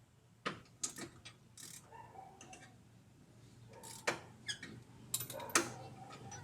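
Irregular sharp metallic clicks and knocks of hand tools and parts during underchassis suspension work, loudest about four and five and a half seconds in.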